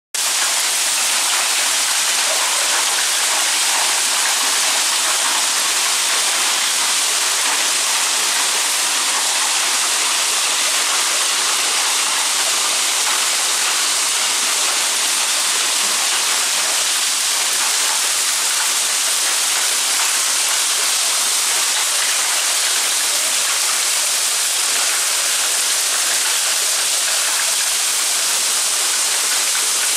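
Hailstones falling heavily onto a tiled courtyard floor, a dense, steady hiss of pellets striking the paving.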